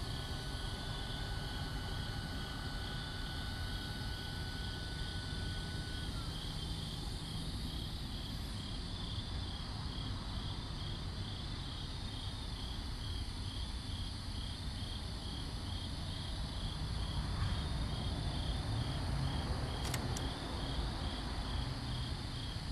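Crickets chirping in an even rhythm, about two chirps a second, over a steady low rumble.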